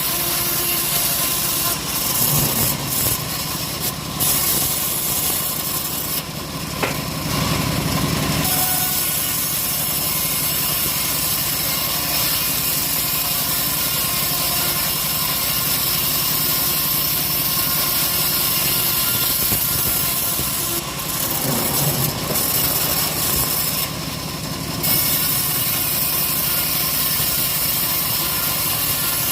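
Homemade engine-driven circular saw cutting through a teak log, the engine running steadily under load with the blade rasping through the wood. The sound eases off briefly twice, about a quarter of the way in and again later on.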